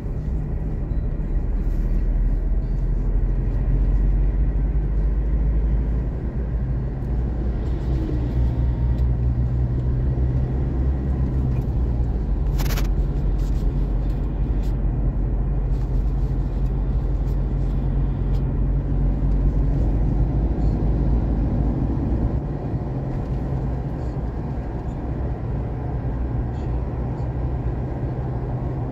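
Car engine and road noise heard from inside the cabin while driving, a steady low drone, with a single sharp click about halfway through.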